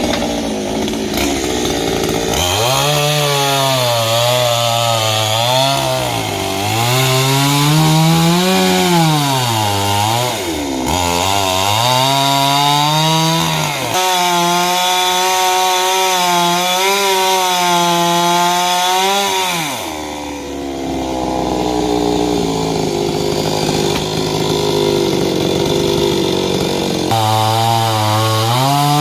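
Chainsaw cutting through a coconut palm trunk, its engine note rising and sagging over and over as the chain bites and frees. About twenty seconds in it falls to a lower, steadier note for several seconds, then revs up again near the end.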